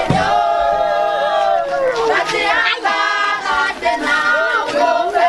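A group of voices singing together unaccompanied, with long held notes that bend and waver.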